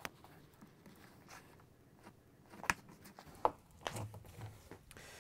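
Scattered plastic clicks and snaps as the locking tabs of a top-load washer's plastic tub cover are pressed down and released one after another, with sharpest clicks about two and a half and three and a half seconds in and a couple of soft low knocks near the end.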